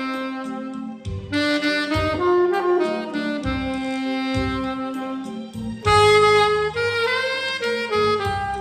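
Saxophone playing a melody in C minor, unprocessed, with held notes that slide into one another, over an accompaniment with a pulsing low bass line.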